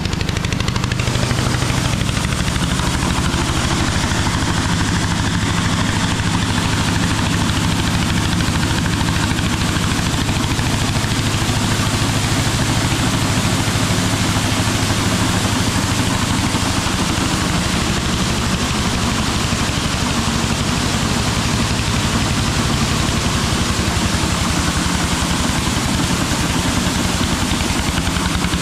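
A tipping trailer's donkey engine running steadily and noisily, driving the hydraulic pump that pushes oil into the ram to tip the body, with a steady hiss of grain pouring out of the raised trailer.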